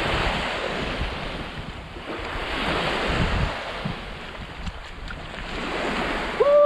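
Small surf washing onto a sandy beach, swelling and falling away every few seconds, with wind buffeting the microphone.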